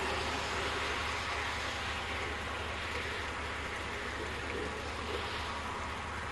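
Car tyres hissing on a slushy, snow-covered road as the car drives off, a steady rushing noise that slowly fades.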